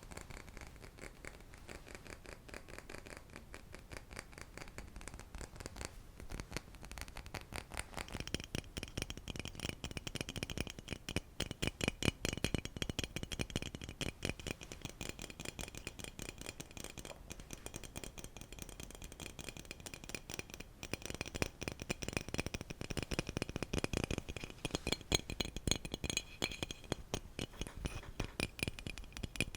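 Fast, light ASMR tapping, many taps a second. From about eight seconds in, the tapped object rings with clear high tones under the taps.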